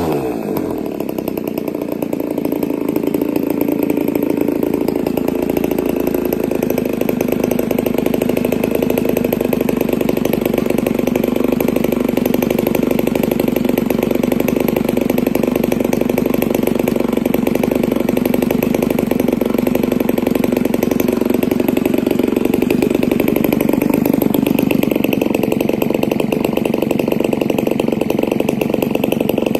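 RCGF 20cc single-cylinder two-stroke gas engine swinging a 17x6 propeller on a test stand, on its first break-in run. It drops back from high revs just after the start and settles into a steady low idle of about 1,400 rpm.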